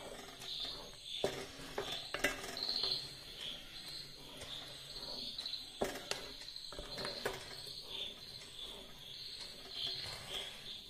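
A spoon stirring a thick jackfruit and jaggery mixture in a metal pot, with a few sharp knocks of the spoon against the pot. Crickets chirp in a steady pulsing rhythm behind it.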